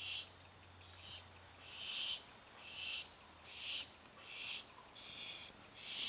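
Barn owl nestlings giving their hissing begging calls while waiting to be fed, a steady series of rasping hisses about one a second.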